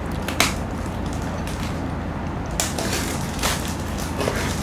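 Beef sirloin and mushrooms sizzling steadily on a hot grill plate, with a few short sharp ticks over the sizzle.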